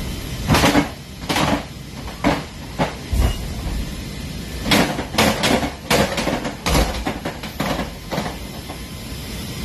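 A series of about a dozen clunks and knocks from a C-17's rear cargo door and ramp being worked, coming in two clusters over the steady drone of the aircraft. Heard inside the cargo bay.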